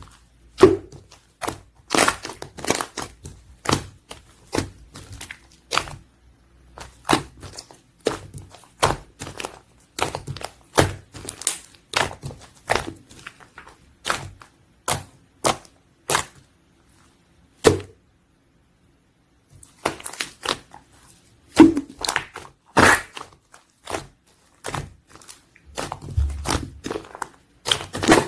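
Slime being squished and stretched by hand, with irregular sharp clicks and pops from trapped air, several a second. The sounds stop completely for a second or two a little past the middle.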